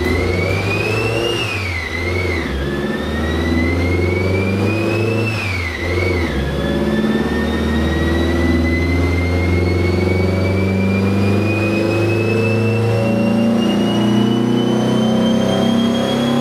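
VW Beetle engine revving on a chassis dynamometer. Its whine rises and drops back three times in the first six seconds as it goes up through the gears, then climbs slowly and steadily in one long full-throttle pull.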